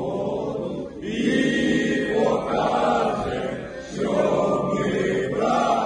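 A group of voices chanting together in short repeated phrases, each about a second to a second and a half long.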